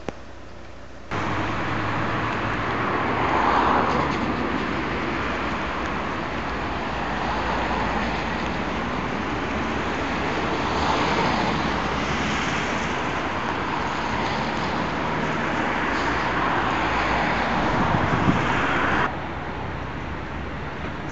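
Steady city road-traffic noise with several vehicles swelling past. The sound changes abruptly about a second in and again near the end.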